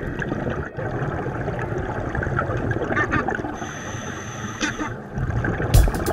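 Muffled underwater rushing and gurgling recorded by a dive camera, with bubbling from scuba divers' exhaled air. A few heavy low thumps come in near the end.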